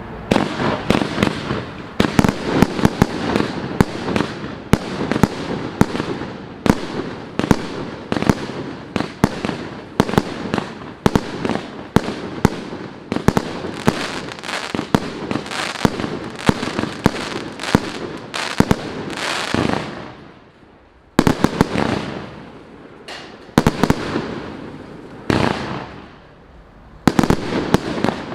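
Multi-shot firework cake (FC113MK) firing: a rapid, continuous string of launches and sharp bangs over crackling. The shots thin out briefly about twenty seconds in, then come again in clusters.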